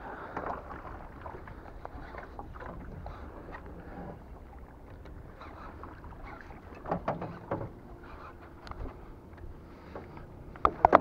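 Water sloshing and splashing with scattered knocks while a big hooked fish is fought in the pond.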